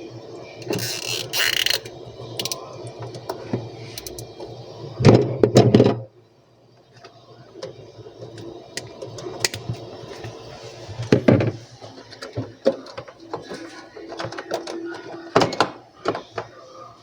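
Clunks, knocks and rattles of a refrigerator's panels and parts being handled and fitted back in place during reassembly, with the largest thumps about five seconds in, at eleven seconds and near the end. A low steady hum sits under the first six seconds.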